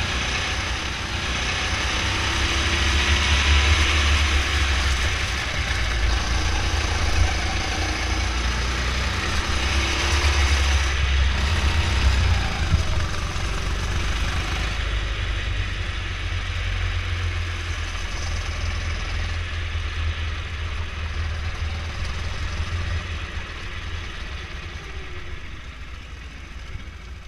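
Go-kart engine running as the kart is driven around the track, its sound swelling and easing with the throttle, then growing quieter over the last several seconds as the kart slows into the pit lane.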